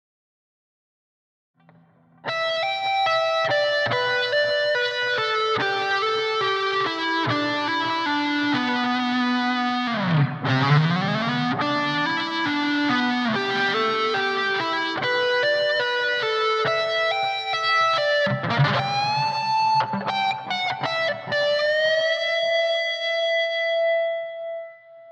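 Dean Deceiver electric guitar through a Blackstar ID:60 amp with distortion, playing a fast hard-rock lick on the minor pentatonic scale after about two seconds of silence. Quick runs of notes, a deep swooping dive and return in pitch about ten seconds in, and a long held note that fades out near the end.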